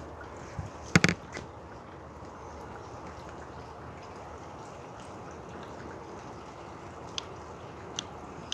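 Light drizzling rain and wind making a steady, even hiss. A sharp double knock comes about a second in, and a couple of light ticks near the end.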